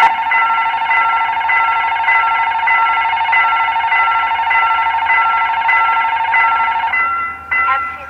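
Electronic warning alarm of a railway level crossing ringing in a fast, steady repeating pattern as the crossing is activated; it cuts off about seven seconds in.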